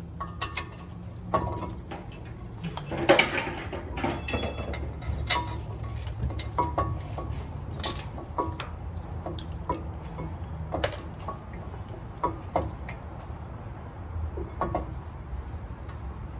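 Metal clinks and knocks of a brake caliper bracket being worked into place against the hub and rotor: scattered irregular taps, with a louder clank and a short metallic ring about three seconds in. A steady low hum runs underneath.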